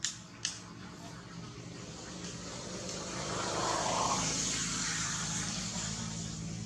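A motor vehicle passing by: its noise swells to a peak about four seconds in and then slowly fades. Two sharp clicks come just at the start.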